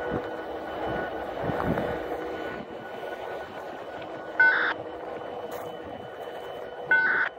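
EMD SD70ACe diesel locomotive standing and idling with a steady hum. Two short, loud beeps cut in, about four and a half and seven seconds in.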